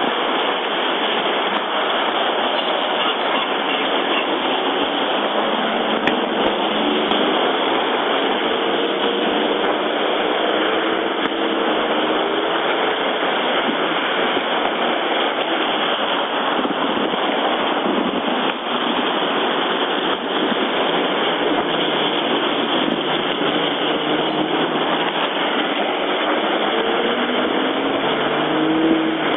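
Steady vehicle noise heard from inside a stopped car, with the engines of passing Jeeps rising and falling in pitch now and then, most plainly near the end.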